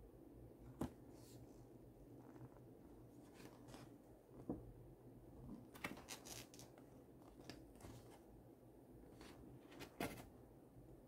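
Faint rustling and crackling of a folded paper leaflet being handled, over quiet room tone with a low hum. A few sharper crinkles come about a second in, around four and a half seconds, in a cluster around six seconds, and once near ten seconds.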